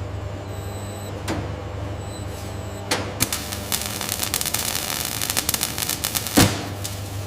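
Machinery running with a steady low hum, a few sharp metallic knocks, and a rapid mechanical clatter that sets in about three seconds in.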